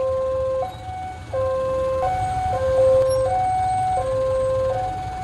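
Railway level-crossing warning alarm sounding its electronic two-note chime, a lower and a higher tone alternating, each held for under a second, over a low steady rumble. It signals that the barriers are down and a train is approaching.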